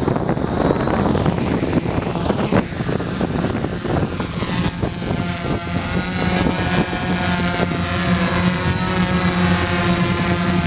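Gaui 330X quadcopter's brushless motors and propellers running close to the onboard camera, a steady multi-rotor hum. It is rough and unsteady for the first few seconds, then settles into clearer, even tones as the craft hovers just off the gravel.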